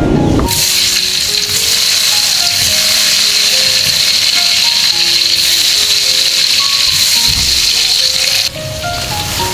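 Food frying in hot oil, a steady loud sizzle that starts about half a second in and cuts off suddenly near the end, over background music.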